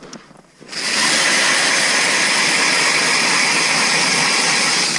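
Ryobi 18-volt cordless hammer drill spinning an ice auger bit through lake ice. It starts under a second in and then runs steadily and loud.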